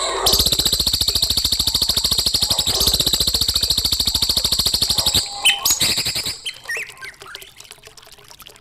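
Recorded songbird song used as masteran tutor song: a long, fast rattling trill of about fifteen notes a second lasting about five seconds, followed by a few short chirps.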